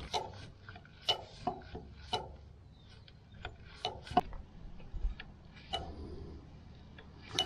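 Hand-lever grease gun being pumped into a tractor chassis grease nipple: irregular sharp clicks and ticks, about one or two a second, from the lever and coupler. It is forcing fresh grease into a fitting that has not been greased for years.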